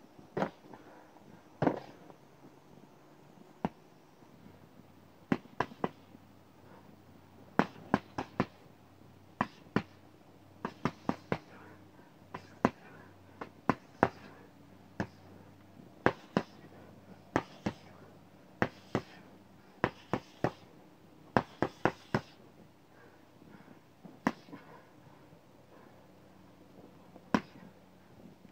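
Gloved punches on a leather speed bag hung under a wooden rebound board: sharp smacks in short, irregular clusters of two to four hits with pauses between, not a steady speed-bag rhythm.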